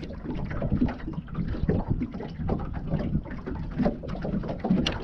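Wind gusting over the microphone and water lapping against a small boat's hull, heard as an uneven rumble with scattered knocks.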